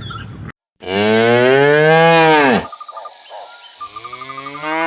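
Cow mooing twice: two long, drawn-out calls, each rising slightly and then falling in pitch, with a short pause between them.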